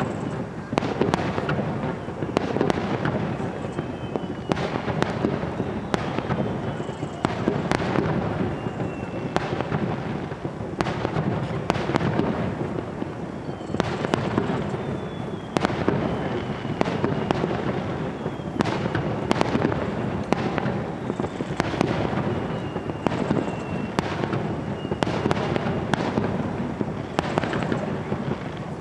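Rapid-fire starmine fireworks barrage: shells launching and bursting in quick succession, a dense run of overlapping booms and crackles over a continuous rumble. Several thin falling whistles cut through the bursts.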